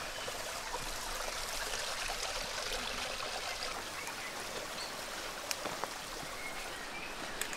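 A stream flowing, a steady rush of water.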